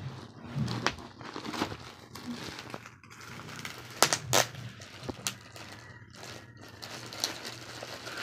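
Plastic courier mailer bag crinkling and rustling as hands work it open, with irregular crackles and a couple of louder crinkles about four seconds in.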